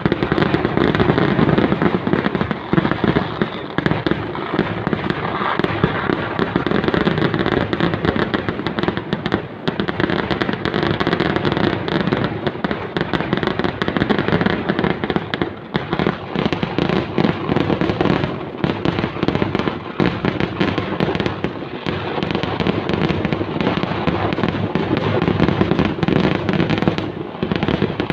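Kerala temple fireworks (vedikkettu) going off in a dense, continuous barrage of rapid explosions and crackling with no pause.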